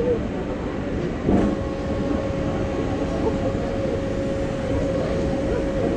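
Amusement-ride machinery running at rest: a steady low rumble, then a clunk about a second and a half in, after which a steady hum sets in. Faint distant voices sound underneath.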